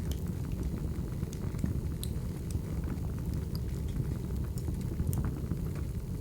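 Wood fire burning: a steady low rumble with scattered sharp crackles and pops of burning logs.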